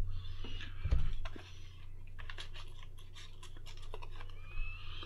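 Irregular light clicks and taps, scattered unevenly, over a steady low electrical hum.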